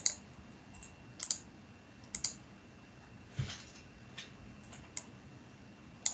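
Scattered computer keyboard keystrokes and mouse clicks, about ten short, faint, irregularly spaced clicks.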